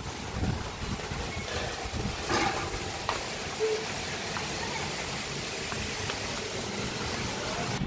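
Steady hiss of pool-side ambience with faint distant voices, and a couple of short knocks between two and three seconds in.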